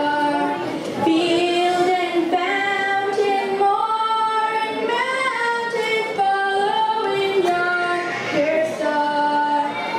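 A woman singing a slow melody solo, holding each note for about half a second to a second.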